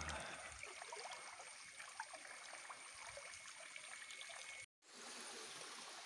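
Faint, steady trickling and running of water in a shallow rocky forest stream and pool. The sound cuts out completely for a moment a little before the end, then resumes.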